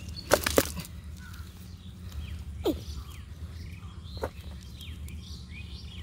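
Freshly caught fish flapping and slapping against a cast net on the grass, with two sharp slaps about half a second in. Birds chirp in the background over a steady low hum.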